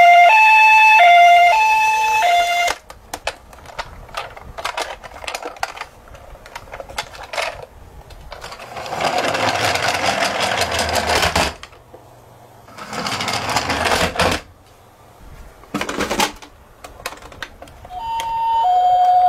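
Toy ambulances' electronic hi-lo two-tone siren, the Japanese ambulance pattern, alternates between two notes for the first few seconds and starts again near the end. In between come sharp plastic clicks and rattles of the toys being handled, and two stretches of rolling noise, a few seconds and then about a second and a half long, from a toy car running along a wooden board.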